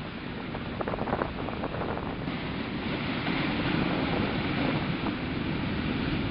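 Ocean surf breaking against a rocky sea-cliff ledge. A wave crashes and surges, growing louder from about two seconds in. Wind buffets the microphone.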